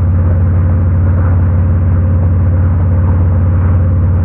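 Harley-Davidson Road King's V-twin engine running steadily at an even speed as the motorcycle rides along the road, with no revving.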